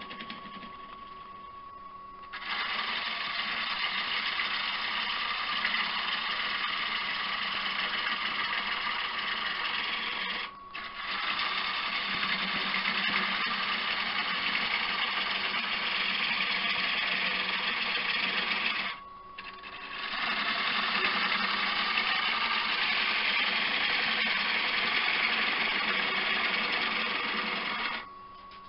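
Wood lathe running with a steady motor whine, while a turning tool cuts into the spinning elm dish in three long hissing passes, with short breaks about 10 and 19 seconds in.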